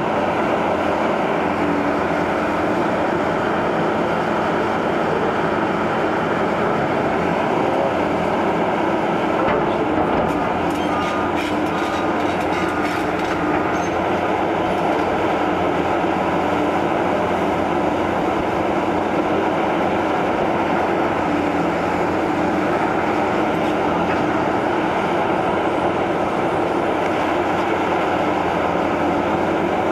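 Liebherr 944 C tracked hydraulic excavator at demolition work: its diesel engine and hydraulics run steadily under load while broken masonry clatters and grinds under the grab and tracks, with a flurry of sharper knocks about ten to fourteen seconds in.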